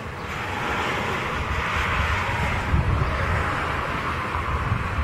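Vehicle noise swelling and then easing off over a few seconds, over a low, uneven rumble.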